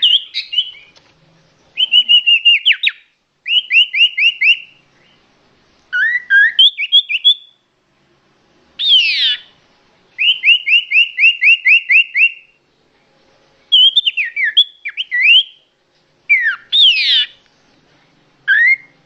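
A songbird singing loud, clear phrases of rapidly repeated, downward-sweeping whistled notes, each phrase a second or two long, with short pauses between.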